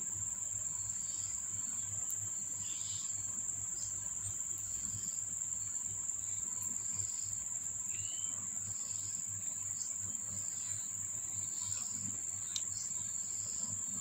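A steady, high-pitched insect trill like crickets, with a few faint short chirps over it.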